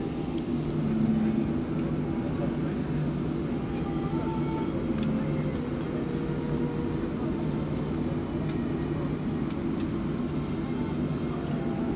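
Cabin noise of a Boeing 737-400 taxiing, heard from a window seat over the wing: a steady, low hum from its CFM56-3 turbofan engines and the airframe rolling on the apron.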